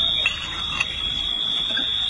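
A steady, high-pitched alarm tone sounds without a break, over a low rumbling background.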